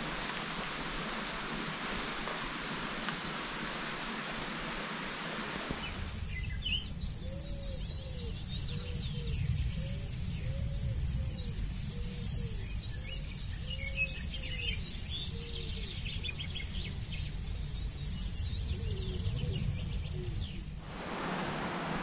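Rainforest ambience. At first a steady hiss with two high, steady whining tones; from about six seconds in, several birds chirp and call, with a low swooping call repeated roughly once a second over a low rumble. The hiss returns near the end.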